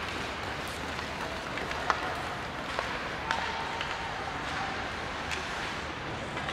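Ice hockey rink ambience during a game: a steady wash of noise with scattered sharp clicks and knocks, and faint voices.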